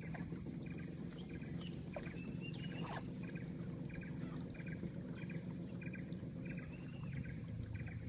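A small river boat's motor running with a steady low drone as the boat moves along, while short chirping calls repeat over and over above it.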